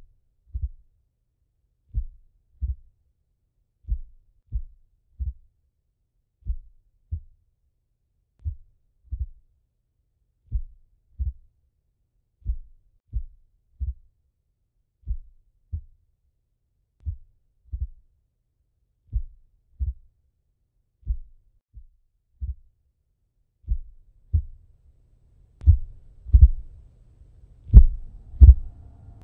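Heartbeat sound effect: slow, steady pairs of low lub-dub thumps. In the last few seconds the beats grow much louder and a low hum comes in beneath them.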